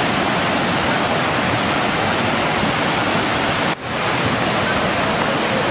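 Floodwater of a swollen, silt-laden mountain river rushing past: a loud, steady rush of water noise, dipping for a moment about two-thirds of the way through.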